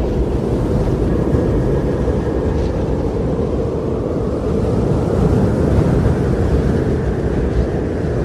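Loud, steady rushing noise with a deep rumble, no distinct events.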